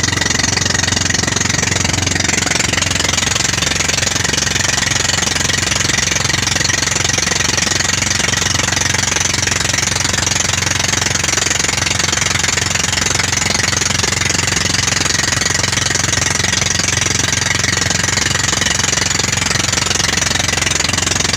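Inboard engine of a motorized outrigger boat (bangka) running steadily while underway, with water rushing past the hull.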